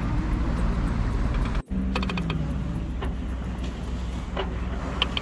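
Steady low drone of a sailing yacht's inboard engine under way, mixed with wind and water noise. It cuts out for an instant about a second and a half in, then comes back with a short falling tone and a few light clicks or creaks.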